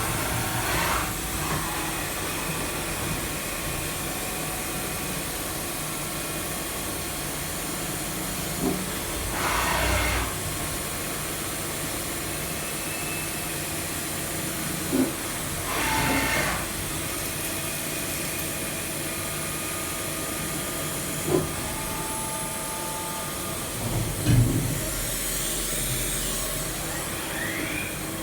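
CNC milling machine running steadily during a threading job, with a few short hissing bursts and several sharp clicks.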